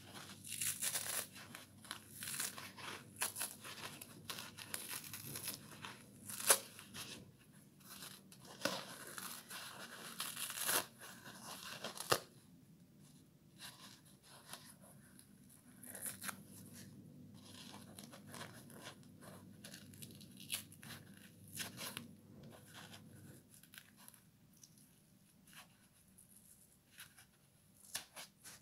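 A kitchen sponge being torn apart by hand, its foam plucked away from the dark green scouring-pad layer: irregular scratchy ripping sounds. They come thick and fast for about the first twelve seconds, then turn sparser and softer.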